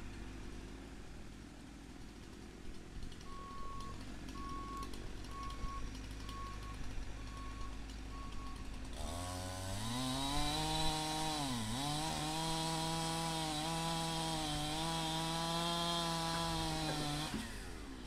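A two-stroke chainsaw revs up to full throttle about halfway through and cuts into the trunk of a fallen hackberry tree. It bogs down briefly in the cut a couple of seconds later, then runs steadily through the wood and lets off near the end. Before it revs, a faint regular beeping sounds over a low background.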